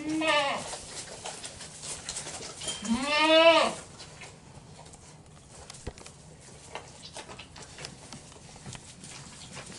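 A four-day-old goat kid bleating twice: a short bleat right at the start and a longer, louder one about three seconds in, each rising and then falling in pitch. Faint scattered clicks follow.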